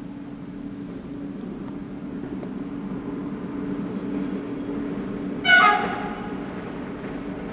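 An approaching freight train's locomotive gives one short horn blast about five and a half seconds in, over the steady low drone of the train coming down the line.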